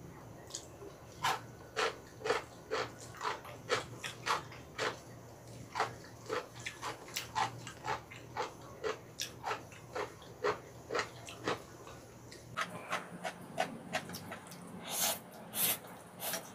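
Close-up chewing of ramen noodles: wet mouth smacks at a steady two or so a second. Near the end the pace quickens and a mouthful of noodles is slurped in, the loudest sound.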